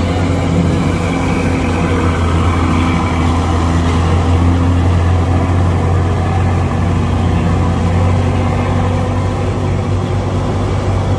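Steady low drone of heavy vehicle diesel engines, a large bus and trucks working up a steep hairpin bend, with no sudden changes.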